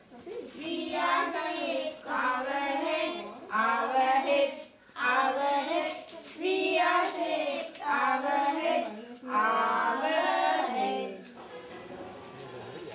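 Children singing a song in short phrases with brief breaks between them; the singing stops about eleven seconds in.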